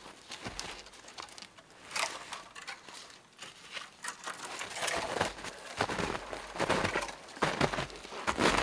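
Dry wood crackling and cracking: a long dead pole and its dry twigs knocking against spruce branches as it is brought down, with boots crunching in snow. A few isolated cracks come first, and the crackling grows denser and louder from about halfway.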